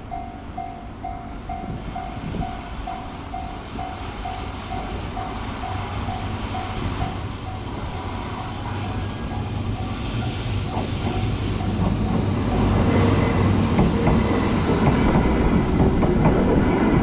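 A level crossing alarm bell rings in steady pulses, about two a second, until about eleven seconds in, while an approaching freight train's rumble grows louder. Over the last few seconds the train rolls through the crossing with loud wheel clatter on the rails. The train is hauling two new electric locomotives.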